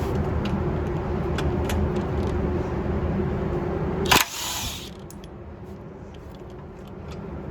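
A steady mechanical hum that cuts off with a sharp click a little past halfway, leaving a quieter background hum with a few faint ticks.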